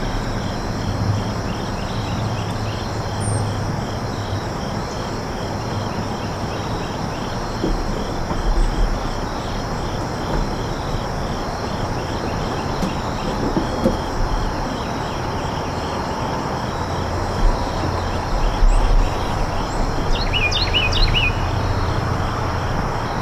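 Steady chorus of insects such as crickets: a high, evenly pulsing trill over a constant rushing background noise with a low rumble. A few short high chirps come near the end.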